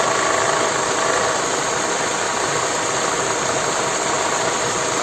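Mercedes-Benz M111 four-cylinder petrol engine idling steadily, heard close up in the engine bay. Its worn alternator-belt tensioner damper is the cause of the rattle on this engine that passes for valve or timing-chain clatter; pressing on the damper makes the sound go away.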